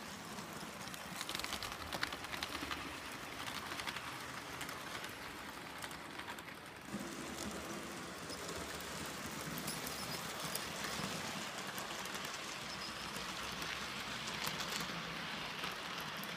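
IHC model steam locomotive pulling passenger cars along the layout's track: a steady rattle of many small clicks from the wheels on the rails, changing in tone about seven seconds in.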